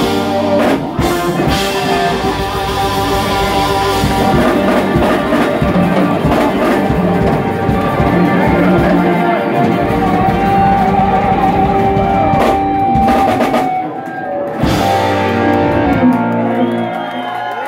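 Live jam-rock band playing: electric guitars, bass guitar, a drum kit with crashing cymbals, and keyboards, loud and full. About fourteen seconds in the band drops out briefly, comes back in on a sharp hit, and the chords ring out as the song closes.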